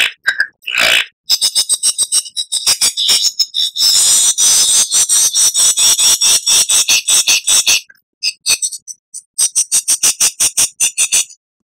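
Lyrebird singing: rapid series of high ringing notes, several a second, running into a continuous trill in the middle, then after a short break more rapid notes that stop shortly before the end.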